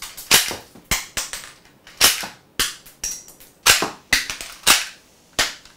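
Toy Glock 18 blowback pistol with plastic shell ejection firing a string of about a dozen sharp snaps, spaced unevenly from a few tenths of a second to about a second apart, each shot working the blowback action.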